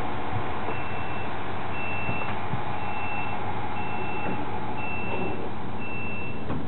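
A high electronic beeper sounding six times, each beep about half a second long at roughly one per second, over the steady running noise of an Alstom Coradia LINT 41 diesel railcar.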